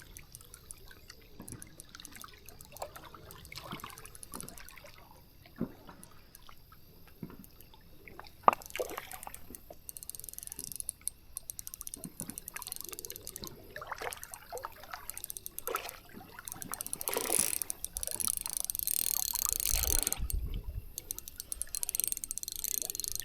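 Water splashing and dripping with scattered light clicks, getting louder and busier over the last several seconds.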